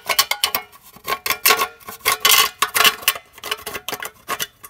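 Cut-open tin can being handled and pushed over the end of an electric motor: a quick, irregular run of tinny metal clicks and clanks that stops near the end.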